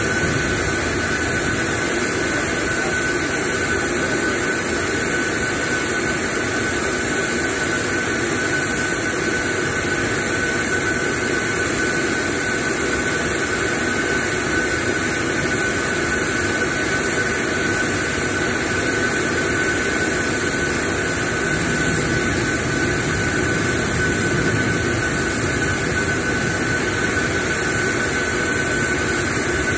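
Steady jet-turbine whine and rush from an aircraft running nearby, with two high constant tones over a broad even noise and no change in level.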